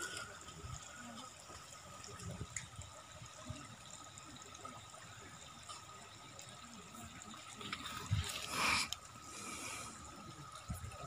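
Faint outdoor background at a crowded fishing pond, with steady thin high-pitched tones. About eight seconds in comes a brief rushing noise, the loudest sound here.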